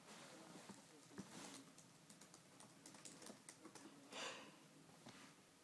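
Near silence with faint scattered small clicks, and a faint breath about four seconds in.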